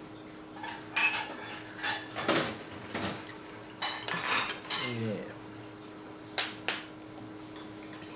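Metal spoon and fork clinking and scraping on a ceramic plate while food is scooped up, a scatter of light clinks with two sharp ones in quick succession near the end.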